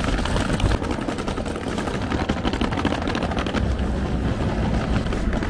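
Hard-shell rolling suitcase's wheels rattling over cobblestones and paving slabs: a loud, dense, continuous clatter.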